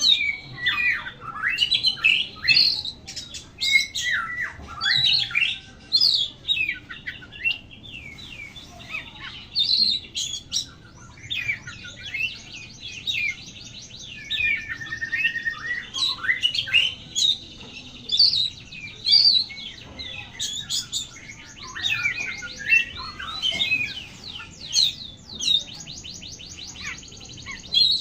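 Oriental magpie-robin (kacer) in full song: a continuous, varied run of sweeping whistles, chirps and harsher squawky notes. Fast trills of rapidly repeated notes come around the middle and again near the end.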